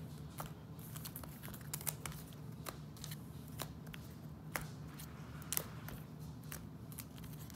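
Foil trading-card booster packs being shuffled by hand on a tabletop: irregular crinkles and light taps as the packs are picked up and dropped back onto the stack.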